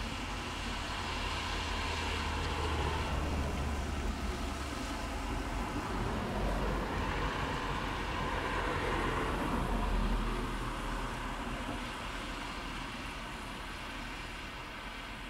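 Road traffic: a steady rumble that swells slowly twice as vehicles pass, then eases off near the end.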